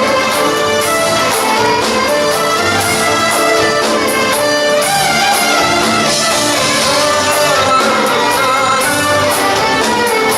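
Loud instrumental music from an ensemble with strings and brass, playing steadily without vocals.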